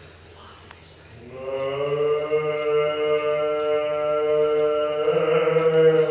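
Byzantine chant sung by a single chanter: about a second in, the voice takes up one long held note, which shifts slightly in pitch near the end before breaking off.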